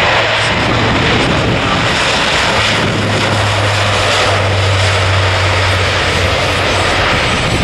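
Lockheed Martin C-130J Super Hercules' four Rolls-Royce AE 2100 turboprops and six-bladed propellers running at high power as the aircraft rolls past. The drone is loud and steady, with a low propeller hum that grows stronger about three seconds in and fades again near the end.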